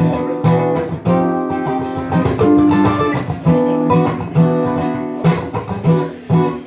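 Acoustic guitar strummed in a steady rhythm, playing chords without vocals: an instrumental passage of a live song.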